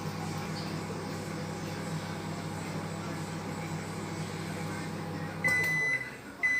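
Panasonic NN-GT35HM microwave oven running with a steady low hum while heating. Near the end the hum stops as the cooking cycle finishes, and the oven gives two high end-of-cycle beeps.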